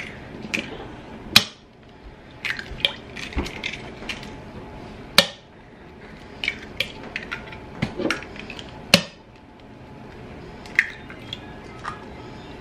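Eggs being cracked one after another into a bowl: sharp knocks of shells being struck, the three loudest about four seconds apart, with smaller crackles of shell being pulled apart and the wet drip of egg dropping in.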